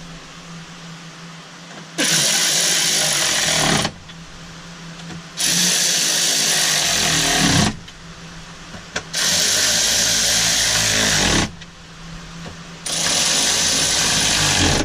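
Cordless power driver spinning fasteners down, four runs of about two seconds each with short pauses between.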